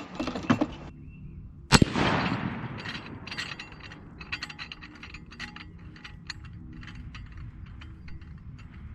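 A single gunshot just before two seconds in, its sound fading over about a second, with a run of light mechanical clicks and rattles before and after it.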